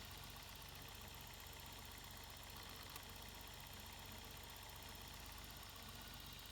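Citroen XM's ZPJ V6 engine idling steadily and faintly, run to check the newly replaced engine-bay fuel lines for leaks.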